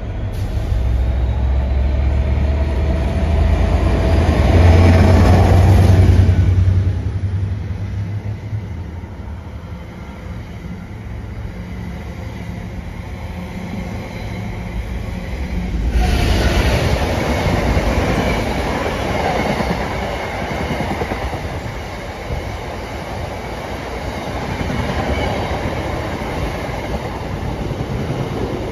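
Class 69 diesel locomotive passing under power, its engine growing loud and peaking about five seconds in, followed by the rolling rumble of the dead Class 720 electric unit it is hauling. About sixteen seconds in the sound cuts abruptly to a freight train of hopper wagons rumbling and clattering past.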